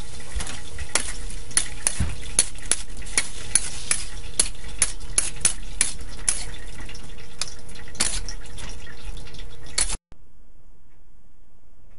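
Spatula scraping and clacking against a wok a few times a second as chicken and broccoli stir-fry in sauce, over a steady sizzle. It stops abruptly about ten seconds in, leaving only a faint hiss.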